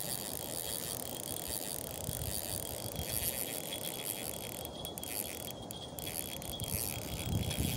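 Spinning fishing reel being cranked to retrieve line, its gears giving a fast, steady mechanical whir.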